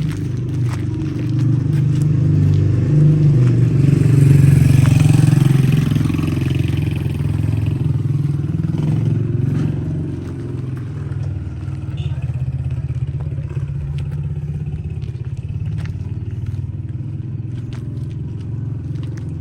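An engine running steadily. It grows louder about three seconds in and eases back after several seconds, with scattered clicks and clatter over it.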